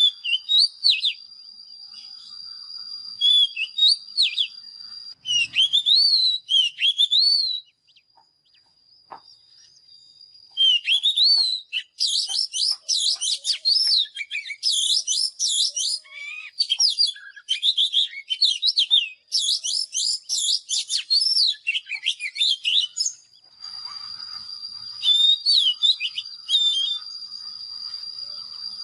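Oriental magpie-robin singing fast, varied whistled phrases. After a short pause a dense run of song follows. A steady high tone runs under the song at the start and again near the end.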